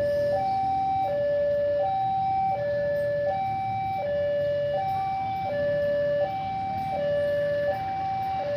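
Railway level-crossing warning alarm sounding a loud two-tone electronic signal. A high and a low tone alternate evenly, each lasting under a second. The alarm signals that a train is approaching the crossing.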